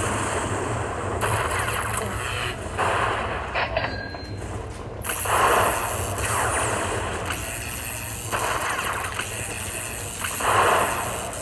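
Aristocrat Lightning Link Dragon Riches slot machine paying out a completed hold-and-spin bonus: electronic payout sounds, with two louder crackling bursts about five and ten seconds in. The bursts are the lightning-strike effects that collect the coin values into the win meter.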